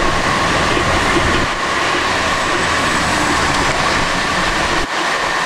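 Violent storm wind rushing over the vehicle and microphone: a loud, steady noise with a faint whistle over it. The low rumble drops away shortly before the end.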